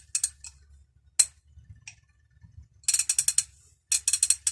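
Half-inch drive Craftsman ratchet being worked, its pawl clicking crisply: a few clicks at the start, a single click about a second in, then two quick runs of rapid clicks near the end.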